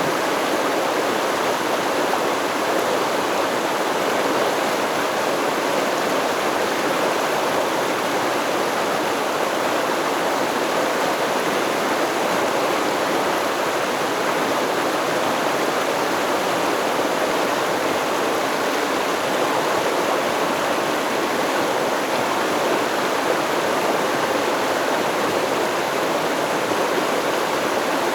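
Stream of water flowing and babbling steadily over rocks, with no change in level throughout.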